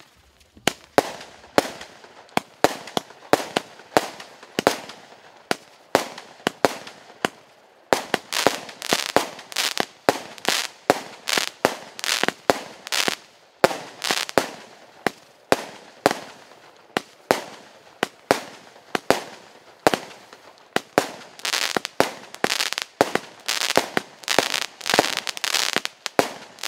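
A 32-shot 0.6-inch firework cake firing shot after shot: a run of sharp bangs, about one to two a second, as the small peony shells launch and burst. Crackling trails follow the bangs and thicken into dense crackle near the end.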